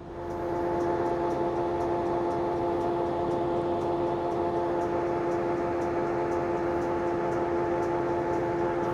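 John Deere forage harvester driving a Kooima K9000 dual roll adapter through its PTO, spinning up within the first second and then running steadily with a pitched whine and a faint regular ticking.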